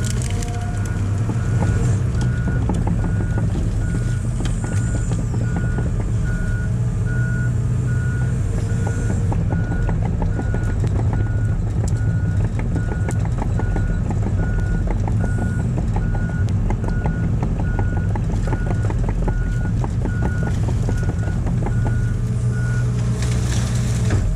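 Heavy excavator's diesel engine running steadily, its motion alarm beeping a little more than once a second, with light knocks and clanks from the machine at work.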